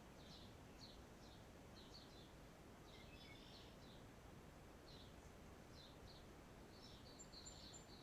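Faint birds chirping outdoors: short high notes, about two a second, over a low, steady background noise.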